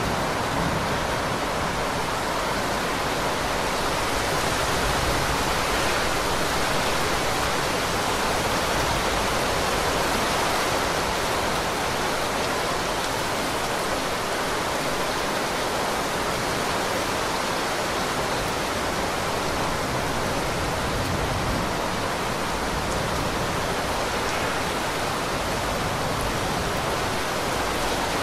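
Heavy rain pouring steadily: a dense, even hiss that does not change.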